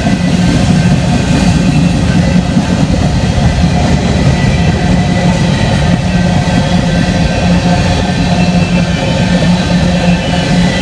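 BNSF freight train rolling past: a loud, steady rumble of the train's wheels and cars on the rails.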